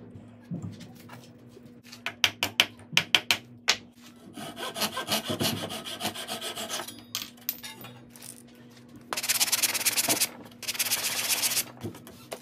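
A wooden dowel being trimmed with a flush-trim saw: a quick run of sharp clicks and taps, then about three seconds of the saw's fine teeth rasping through the dowel. Near the end come two short, loud bursts of hand sanding over the cut end.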